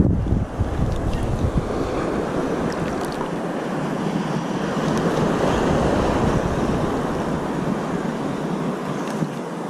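Gulf surf washing steadily around a wading angler, with wind buffeting the microphone, heaviest in the first second or two.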